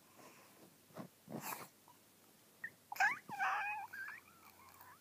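A dog making odd vocal noises: a faint snuffling breath or two, then a short run of squeaky, warbling whines and grumbles about three seconds in.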